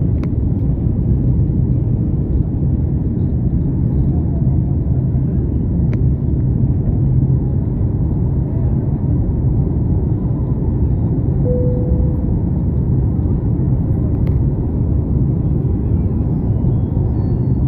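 Steady low rumble of a jet airliner's engines and airflow heard inside the cabin during the climb just after takeoff.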